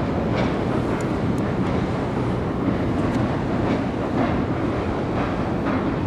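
Tobu Railway train crossing the steel Sumida River railway bridge: a steady, heavy running noise with scattered metallic clanks.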